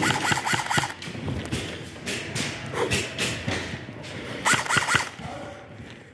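Airsoft guns firing in short bursts, with sharp knocks of BBs striking cover in between. Players shout in the distance in the first second and again near the end.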